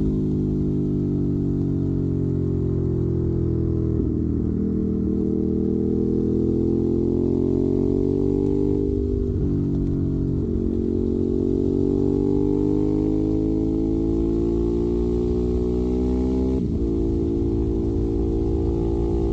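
Ducati Monster 821's V-twin engine running through a Termignoni exhaust. Its note rises and falls slowly, with abrupt steps in pitch about 4, 9 and 17 seconds in.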